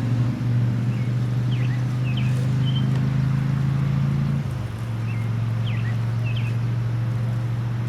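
Harley-Davidson motorcycle's V-twin engine running with a steady low drone; the drone thins and dips slightly about four and a half seconds in. Small birds chirp in short repeated calls over it.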